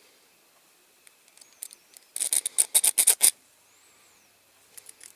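A small metal file rasping in quick short strokes on the peened end of a diecast toy's steel axle, about eight strokes in just over a second around the middle, with a few light ticks near the end.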